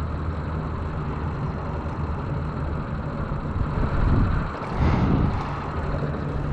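Steady low hum of a small motor running on a boat while trolling, with wind buffeting the microphone twice around the middle.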